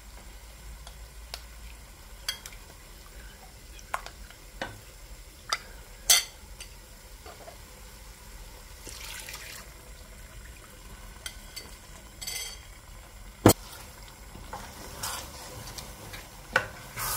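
Kitchen handling sounds at a metal cooking pot: scattered clinks and knocks of a bowl and spoon against the pot, with one sharp knock a little past halfway, and a short pour of coconut milk onto the rice. Near the end a wooden spoon stirs the wet rice in the pot.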